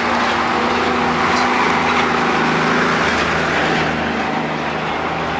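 Small vehicle engine running steadily, heard from a moving vehicle amid street traffic noise. Its hum drops a little in pitch about three seconds in.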